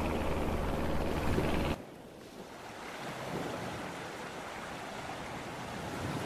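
Steady rushing noise with a low hum that cuts off abruptly about two seconds in, followed by a softer, even wash of small ripples lapping in clear shallow lagoon water, with some wind on the microphone.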